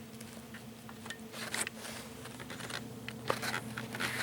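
Faint handling noise of scattered light scrapes and clicks, one sharper click about three seconds in, over a steady low electrical hum.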